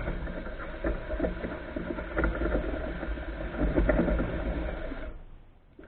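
Muddy, clay-thick water with gravel sloshing and churning as the pay dirt is stirred by hand in a container. It stops about five seconds in.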